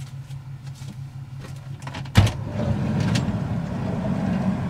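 Camper van's rear door unlatched with a sharp clunk about two seconds in and pushed open, letting in a louder wash of outside noise. A steady low hum runs underneath.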